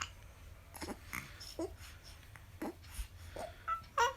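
A three-month-old baby hiccuping, with short breathy catches and little squeaks and grunts several times, the loudest a brief squeak near the end.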